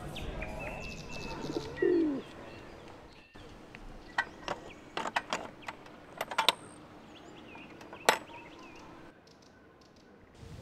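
Birds chirping, then a run of sharp mechanical clicks from a coin-operated gumball machine as its crank is turned, the loudest click about eight seconds in.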